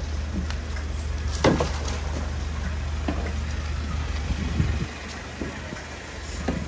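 A vehicle's engine or motor running with a steady low hum, with a few sharp knocks and clatters. The hum drops off a little before the end.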